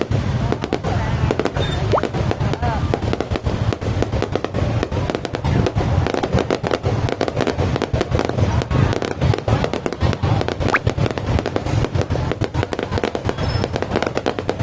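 Aerial fireworks display: a dense, unbroken barrage of bangs and crackling bursts, many per second, with deep rumbling booms underneath.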